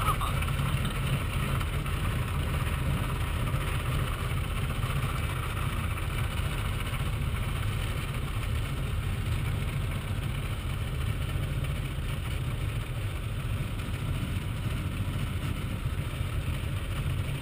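Steady engine, propeller and airflow noise heard inside the canopy of a micro airplane on its landing roll down the runway, easing off slightly near the end.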